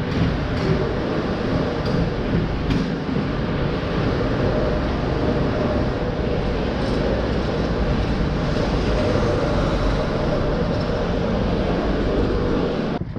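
Steady, loud rushing rumble of wind and movement on a GoPro's microphone carried by a running person. It cuts off suddenly near the end.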